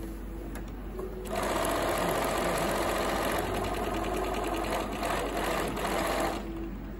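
Bernina B 325 sewing machine stitching a test cloth: the machine starts about a second in, runs at a steady speed for about five seconds with a fast, even needle rhythm over a steady motor whine, and stops near the end.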